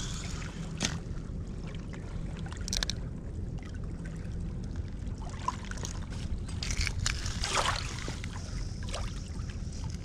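Steady low rumble of wind and river water at the shoreline, with a few scattered crunches of footsteps on stones, brick and debris.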